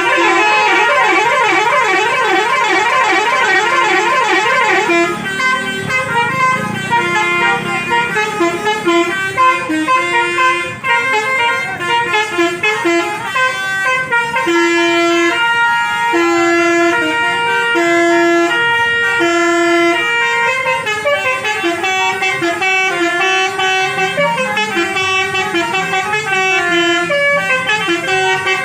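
Indonesian "basuri" musical bus horn playing a tune: a fast warbling trill for about the first five seconds, then a melody of held notes stepping up and down in pitch.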